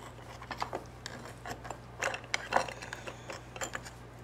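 Metal tongs clicking and scraping against hard steamed quahog shells in a bowl as the clams are worked out, heard as a series of short, irregular clinks and knocks.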